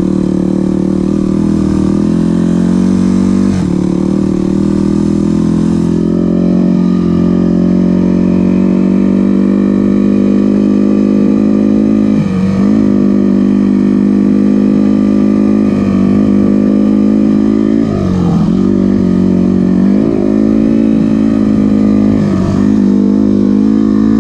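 Dual-sport dirt bike engine running under way, heard close from the handlebars with a steady, even note. About six times, mostly in the second half, the pitch dips briefly and climbs back.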